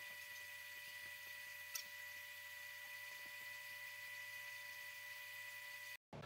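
Faint steady electrical whine and hum, several fixed tones over a light hiss, with one short click a little under two seconds in. It cuts off abruptly about six seconds in.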